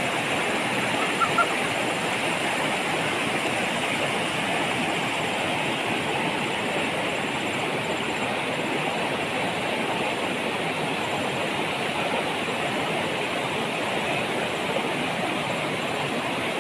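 Shallow rocky river flowing fast over stones, a steady rush of water.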